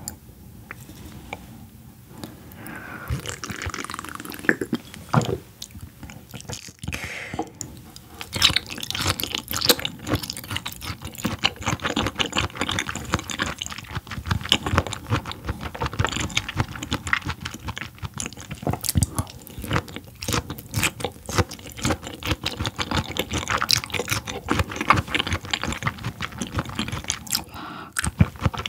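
Close-miked chewing of raw yellowtail sashimi, a dense run of quick soft mouth clicks that gets busier from about eight seconds in.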